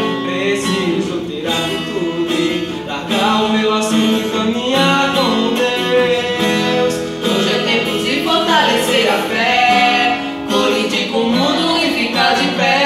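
A man and a woman singing a slow Portuguese gospel song to a strummed nylon-string acoustic guitar.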